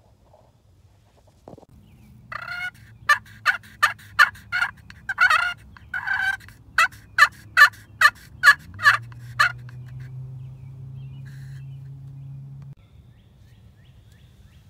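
Primos 'The Freak' crystal-surface pot turkey call scraped with a striker, giving a series of about fifteen short yelps at two or three a second, with a couple of longer notes in the middle.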